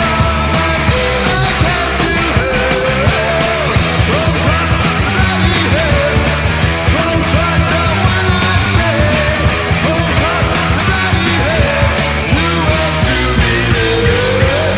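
Speed metal recording playing: a fast, loud full-band track with a rapid, even drumbeat under distorted rock instrumentation.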